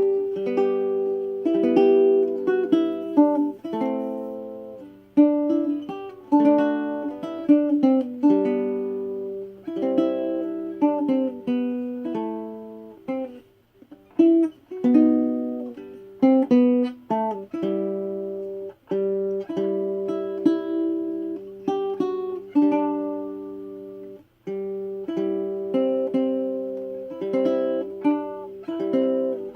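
Solid-wood baritone ukulele with a cherry back and sides and an aspen top, played in chords and picked notes in re-entrant tuning with a high D string; each chord rings and decays, with brief pauses about 14 and 24 seconds in.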